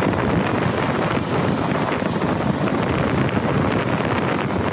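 Wind buffeting the microphone, a steady rumbling noise, over heavy surf breaking and washing up the beach.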